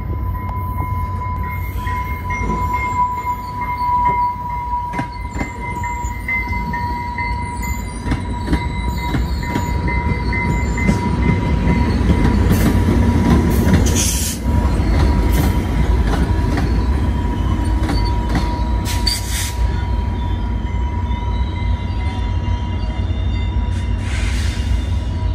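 Trinity Railway Express diesel locomotive and bilevel commuter cars rolling slowly into the station: a deep, steady engine rumble with a steady high-pitched squeal over it, and a few sharp metallic clanks around the middle.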